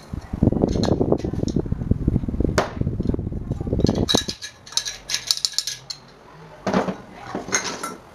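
Pliers scraping and prying at the metal end cap of an electric fan motor. A few seconds of rapid rasping strokes are followed by high metallic rattling and clinks, then a few separate sharp clicks near the end.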